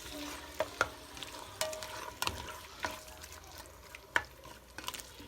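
Cubed chicken frying with onions, ginger and tomatoes in olive oil, sizzling softly as it is stirred, with several sharp clinks of the stirring utensil against the pot.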